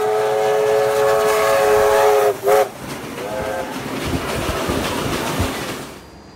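A steam locomotive whistle blows one long blast of a little over two seconds, then a short toot and a fainter, shorter blast, over the steady rumble of steam trains running side by side at speed. The sound drops off abruptly near the end.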